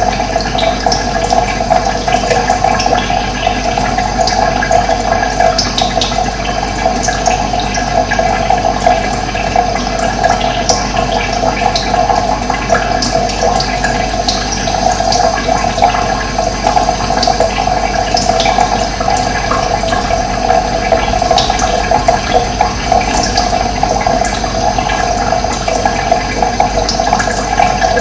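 Running water flowing steadily, with short bird chirps now and then over it.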